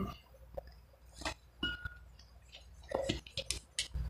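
Faint, scattered clicks and soft taps from hands pressing and rolling mashed potato around a skewered sausage on a plastic cutting board.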